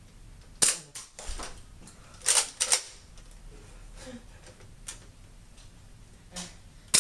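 Nerf foam-dart blasters firing: a handful of sharp plastic clacks at uneven intervals.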